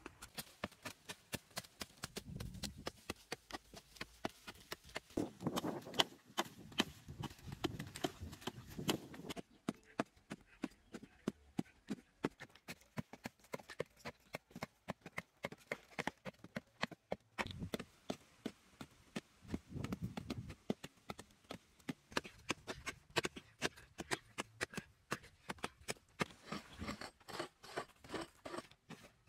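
A hand digging tool striking and scraping into hard, dry earth, over and over, with many sharp knocks and crumbling clods of dirt.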